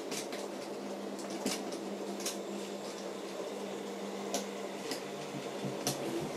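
N-gauge model train running on the track: a steady mechanical hum, with about half a dozen sharp, irregular clicks as the tank wagons' wheels cross rail joints and pointwork.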